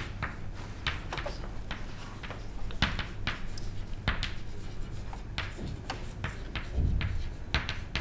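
Chalk writing on a chalkboard: a rapid series of short taps and scratches as words are written, over a steady low hum.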